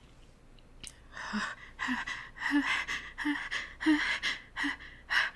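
A woman's hitching, catching breaths as a sneeze builds in her nose and she holds it back with a finger under it. About six short gasping in-breaths start about a second in, roughly one every half to two-thirds of a second, getting louder, with no sneeze yet.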